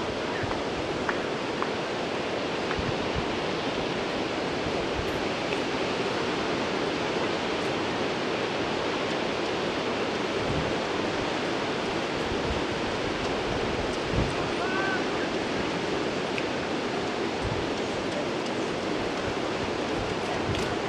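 Steady rushing noise of sea surf and wind, with a brief low bump about fourteen seconds in.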